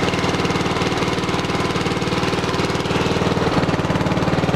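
Briggs & Stratton 12.5 HP single-cylinder lawn tractor engine running with a steady, rapid chugging beat, freshly started cold after years of sitting. Its beat shifts slightly about three and a half seconds in.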